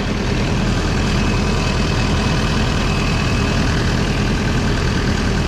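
Diesel engine of a John Deere 317 skid steer running steadily.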